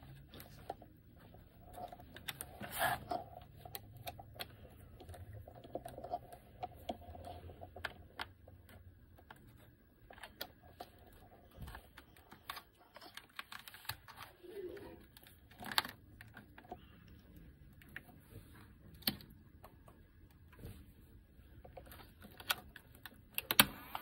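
Faint, scattered clicks and taps of alligator-clip leads and fingers handling a plastic VHS-C cassette adapter on its battery contacts, with a louder click near the end.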